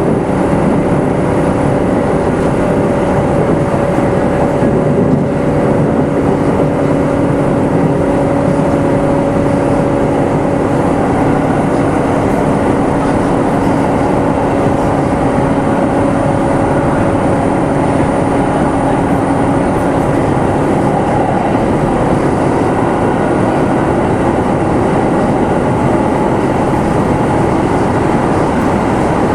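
Kintetsu 2610 series electric train running, heard from inside motor car Mo 2669: steady rumble of wheels on rail with a steady whine that fades away about twenty seconds in.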